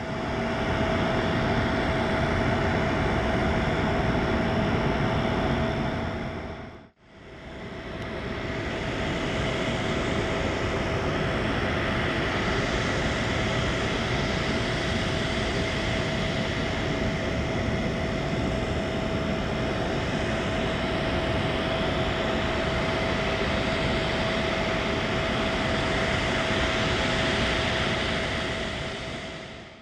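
Steady whine and rush of a parked Boeing 777 freighter's auxiliary power unit, with a constant high tone over the noise. The sound breaks off briefly about seven seconds in, then carries on as before.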